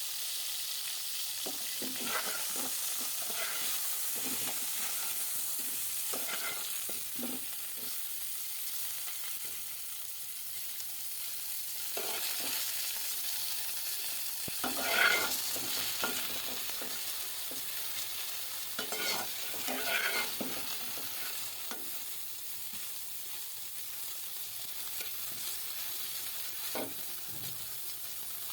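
Cauliflower florets sizzling as they shallow-fry in hot oil in a karahi, stirred now and then with a utensil that scrapes and knocks against the pan; the loudest scrape comes about halfway through.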